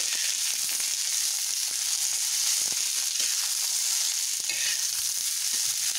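Corn kernels sizzling in oil on a hot flat tawa while a metal spatula stirs them, with a steady hiss and many quick clicks and scrapes of the spatula and kernels against the pan.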